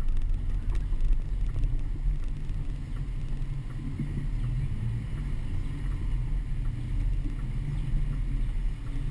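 Low, steady rumble of a car driving slowly, picked up by a camera mounted on the outside of the car, with wind buffeting the microphone.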